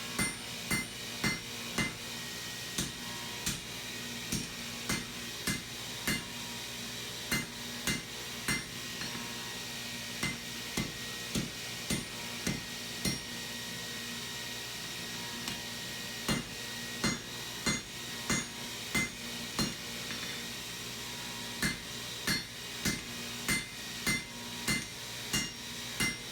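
Hammer blows on hot steel over an anvil, each strike ringing metallically, coming in runs of one to two a second with a couple of short pauses: forging a knife blank.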